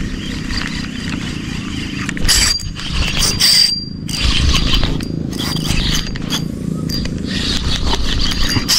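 Bison Squid 2500 spinning reel being cranked in stretches, a whirring with a thin high whine, over a low steady rumble.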